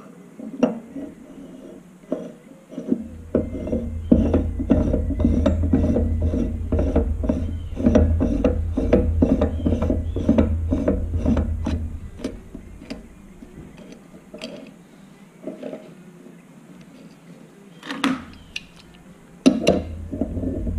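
Threaded cap of a Victor oxygen regulator being screwed back onto the body by hand, the threads and metal parts clicking and rubbing in a fast even series over a low handling rumble. A few sharp metallic knocks near the end as an adjustable wrench is set on the regulator.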